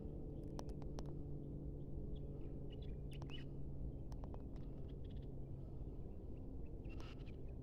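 Scattered short chirps from small birds over a steady low hum.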